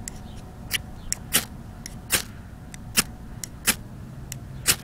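Ferrocerium rod (a firesteel.com Armageddon fire steel) scraped repeatedly with a striker: a series of about a dozen short, sharp scrapes, unevenly spaced and some louder than others, throwing sparks to light a jute twine fluff tinder bundle.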